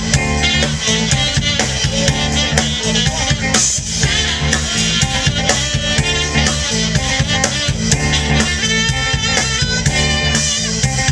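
Live band playing upbeat soul-blues, with a tenor saxophone solo over electric bass and a drum kit.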